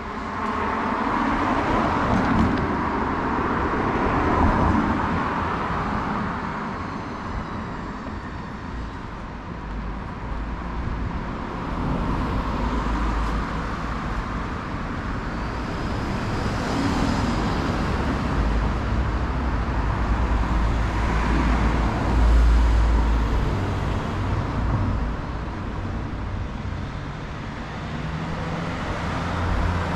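Road traffic passing, with cars swelling and fading in waves over a steady rumble of traffic.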